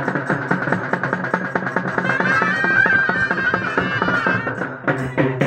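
Traditional drum-and-pipe festival music: drums beaten in fast, even strokes under a wind instrument's wavering melody, which stands out most from about two to four and a half seconds in.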